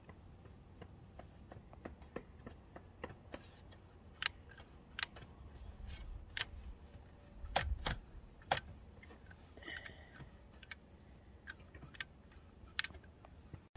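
Irregular sharp clicks of a caulking gun's trigger and plunger being worked while sealant is squeezed around a chimney pipe's roof flashing, the loudest couple of clicks about eight seconds in, over a low wind rumble on the microphone. The sealant is thick and slow to come out, like tar, late in a cold day.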